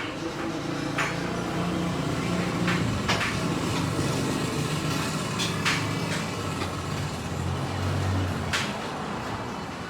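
A vehicle engine running, its low hum shifting in pitch and easing near the end, with a few sharp knocks or clanks.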